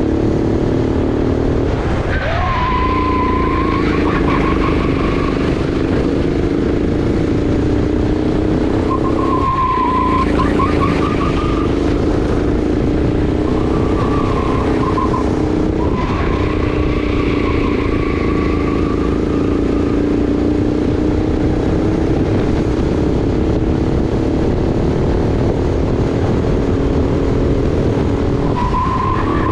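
Sodi RX8 rental kart's 390 cc engine running hard on track. Its note dips briefly about four times, and a high, wavering tyre squeal follows several of the dips through the corners.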